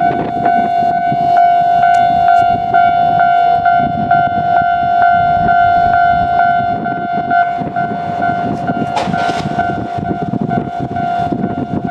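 Japanese level-crossing warning bell ringing in a steady, regularly repeating tone over the continuous rumble of a freight train: container wagons hauled by an ED76 electric locomotive passing over the crossing. There is a brief louder hiss about nine seconds in.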